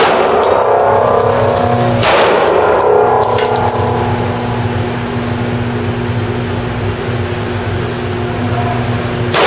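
Smith & Wesson M&P 9mm pistol firing frangible rounds at steel targets: a shot at the start, another about two seconds in and a third at the very end. The struck steel plates ring after the shots, over a steady low hum.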